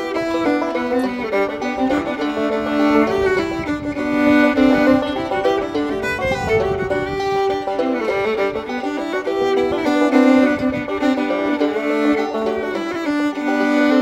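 Background music: a fiddle tune.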